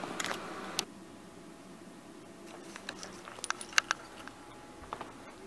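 Kyocera ECOSYS M3540idn laser printer running with sharp clicks, then shutting down about a second in. Scattered light clicks and ticks follow.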